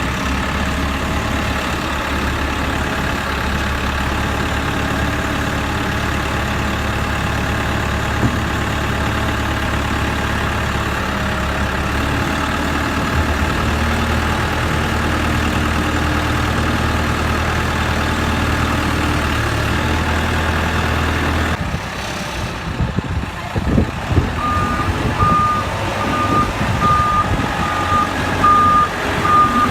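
Self-loading concrete mixer truck's diesel engine running steadily. About two-thirds of the way through, the steady hum gives way to rougher, uneven machine noise, and a reversing alarm starts beeping about once a second.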